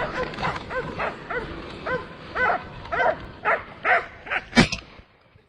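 A dog barking and yelping in quick repeated calls, then a single loud shotgun shot about four and a half seconds in, after which the barking stops.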